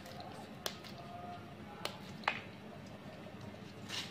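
A few faint, sharp clicks and taps, about five spread over four seconds, as cut long beans and a spoon knock against the mortar.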